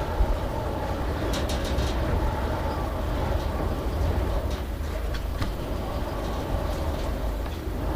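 A steady low rumble with a few sharp clicks, a cluster of them about one and a half seconds in and more about halfway through.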